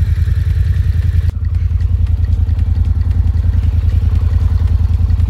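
Honda sport ATV's engine running steadily with an even low pulse while it is ridden, with a brief dip about a second in.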